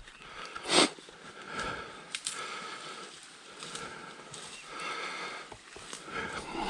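A person breathing heavily close to the microphone, a breath about every second and a half, with one louder breath about a second in.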